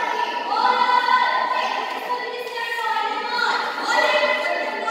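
Female voices singing a slow melody in long held notes, heard in a large hall.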